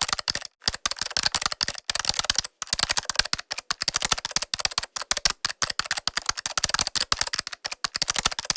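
Laptop keyboard being typed on: a fast, continuous patter of light key clicks, broken by a couple of brief pauses.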